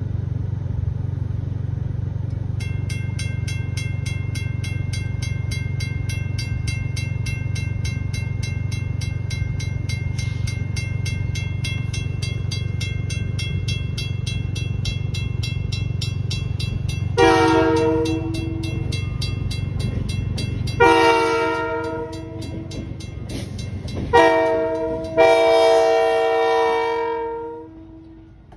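A railroad crossing bell starts ringing a few seconds in with evenly repeated strikes. Near the end a Canadian Pacific freight locomotive's air horn sounds the grade-crossing signal, long, long, short, long, the last blast the longest. A low steady rumble runs under the bell until the second horn blast.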